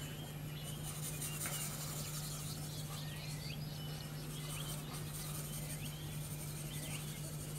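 Pencil shading on sketchbook paper: faint repeated scratching strokes over a steady low electrical hum.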